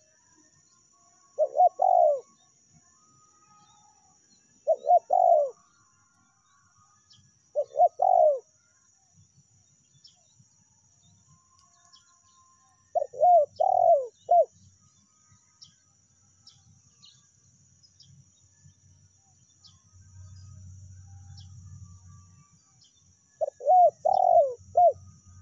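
Spotted dove (tekukur) cooing in five separate phrases: three short ones a few seconds apart, then two longer phrases of four or five notes each, about 13 s in and near the end.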